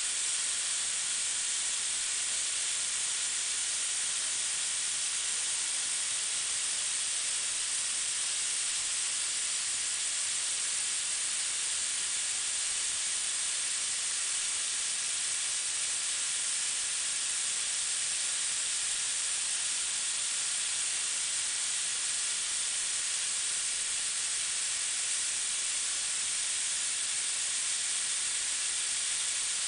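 Grinding wheel of a CNC profile grinder cutting a rubber roller: a steady, even hiss that does not change, with faint steady tones from the machine underneath.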